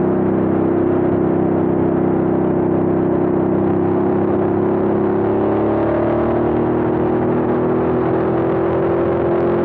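Ducati motorcycle's twin-cylinder engine running at a steady highway cruise, a low, even drone, over wind and road noise at speed.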